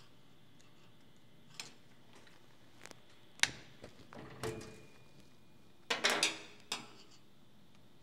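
Scattered metallic clicks, taps and knocks of small parts as the IBM Selectric III's bell assembly is worked loose by hand, with a short faint ringing tone midway.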